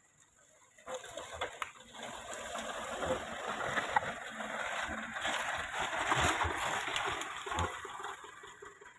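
Tyres of a loaded palm-fruit truck churning through deep wet mud. A rough, wet noise with scattered clicks sets in suddenly about a second in and eases off near the end.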